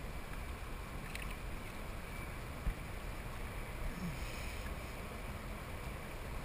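Steady wind and water noise around a kayak, with a single thump about two and a half seconds in and a brief splash about four seconds in as the hooked smallmouth bass thrashes at the surface beside the hull.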